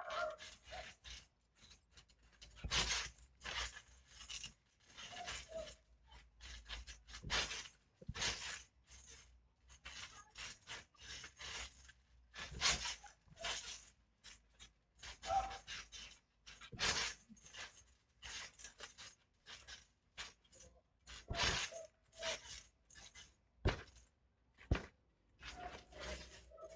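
Bodies and bare feet scuffing, rubbing and thumping on a trampoline mat during grappling with a stuffed toy: an irregular run of rustles and scrapes, with two sharper knocks near the end.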